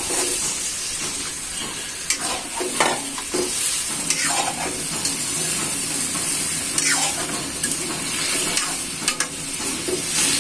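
Tomatoes and okra sizzling in hot oil and spice paste in a metal karai, while a metal ladle stirs them, scraping against the pan every second or two.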